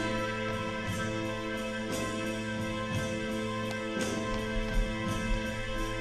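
Handbell ensemble playing: many bells ringing on together over low held tones, with new strikes at a steady pulse of about two a second.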